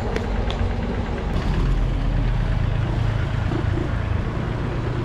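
Street traffic: a motor vehicle's engine running with a steady low hum, which grows firmer after about a second and a half, over general road noise.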